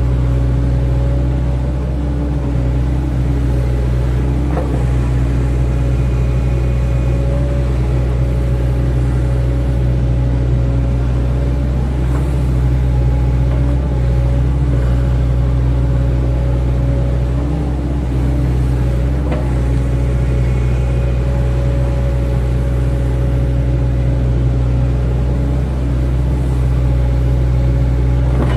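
Excavator's diesel engine running steadily at constant speed, with three faint knocks spread through.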